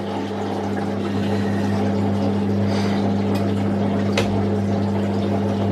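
Washing machine drain pump running on its drain cycle: a steady low hum pumping the water out, with a couple of faint ticks around the middle.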